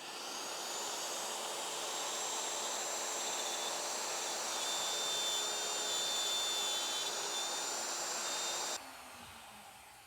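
Router motor running with a steady high whine while routing holes for 3/4-inch dowels, then switched off near the end and winding down.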